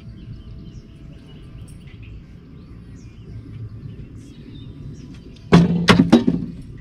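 A low steady rumble with faint bird chirps. About five and a half seconds in, a quick cluster of four or so loud knocks and thumps as a just-caught fish is handled out of a landing net on the boat deck.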